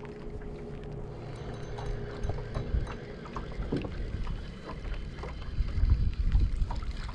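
Wind buffeting the microphone in a steady low rumble, with a steady hum that stops about two and a half seconds in. Scattered light clicks from the spinning reel and tackle come through as a fish is played on a bent rod.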